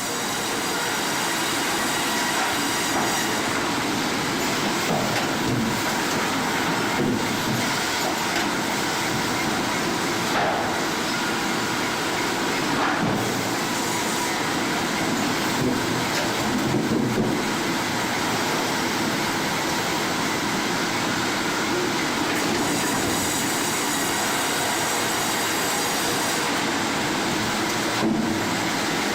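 Sawmill machinery running with a steady, loud mechanical noise and a faint high squeal of metal, broken by a few brief dips.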